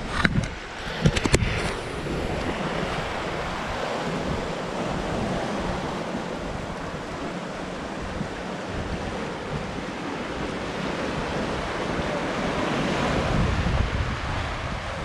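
Sea surf washing and breaking over rocks along the shore, a steady rush that swells louder near the end, with wind buffeting the microphone. A few sharp knocks in the first second and a half.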